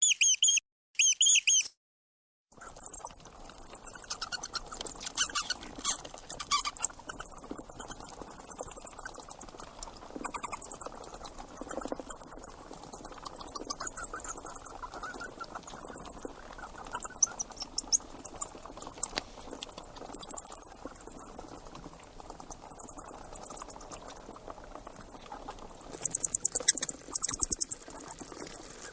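Mice squeaking: first a few short, clear high squeaks, then from about three seconds in a noisier recording of rapid, very high chirps in quick trains over a steady hiss.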